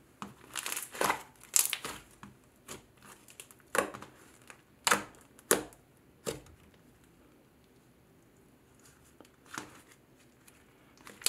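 Cloud cream slime being pressed, squished and stretched by hand, giving irregular sticky crackles and pops. Most come in the first six seconds or so, then a quiet spell, then a few more near the end.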